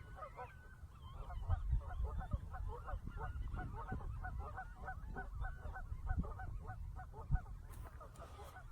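A large flock of birds calling continuously: many short, overlapping honking calls, several a second, over a low rumble.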